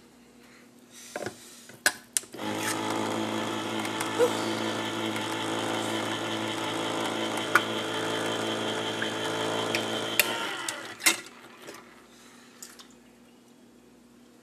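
Electric can opener running for about eight seconds, a steady motor hum as it cuts round a can, with clicks and knocks as the can is set in place before it starts and one as it is released after it stops.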